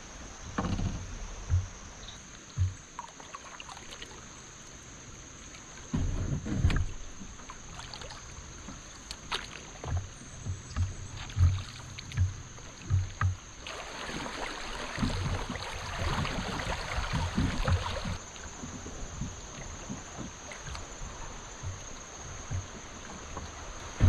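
Kayak hull handling sounds: scattered knocks and thumps on the plastic hull with water moving around it, and a few seconds of louder hissing, splash-like noise past the middle. A thin steady high tone runs underneath.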